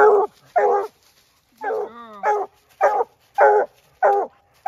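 A coonhound barking treed, reared up on its hind legs against the trunk: a steady run of about seven loud chop barks, roughly two a second, with a short wavering bawl running into one of them a little before the middle. It is the sign that the hound has a raccoon up the tree.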